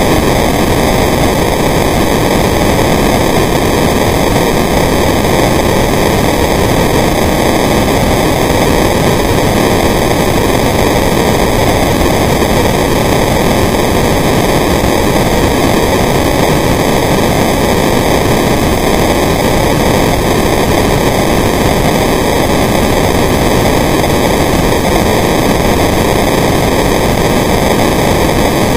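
Steady, loud hiss-like underwater noise picked up through a dive camera's housing, even throughout with no distinct events.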